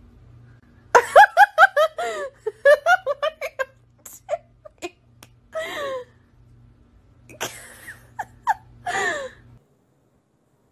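A person laughing in quick, repeated bursts of giggles, on and off, with a few sharp clicks in between. The sound cuts off suddenly near the end.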